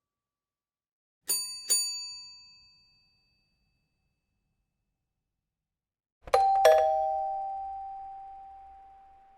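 Two doorbell chimes in turn. About a second in, a bright, high chime is struck twice quickly on the same note and rings out briefly. About six seconds in, a lower ding-dong sounds, two notes falling in pitch, and rings out for about three seconds.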